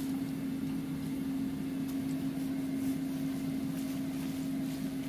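A steady, even machine hum, like a household appliance or fan running, with a few faint light clicks.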